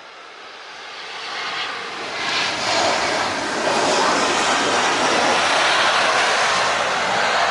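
Jet airliner's engines, growing louder over the first three seconds as it passes close, then holding loud and steady.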